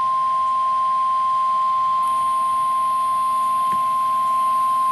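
NOAA Weather Radio 1050 Hz warning alarm tone: one steady, unbroken high-pitched tone that signals the start of a severe thunderstorm warning broadcast.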